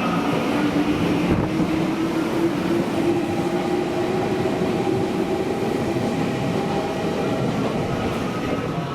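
Meitetsu electric train moving along the platform, a steady rumble of wheels and running gear with a motor tone that rises slowly in pitch over the first several seconds and then fades.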